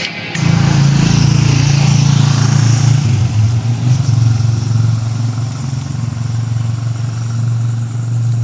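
A motor vehicle's engine running steadily with a low, even drone and some road or wind noise, starting about half a second in as music cuts off.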